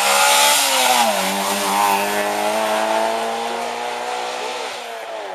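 Ford Escort Mk1 rally car's engine at high revs as the car passes and pulls away. The note dips about a second in, then holds steady while fading with distance, and drops again near the end.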